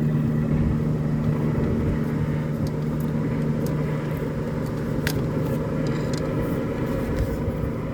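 A steady low mechanical drone, like a running motor, with a few faint light clicks.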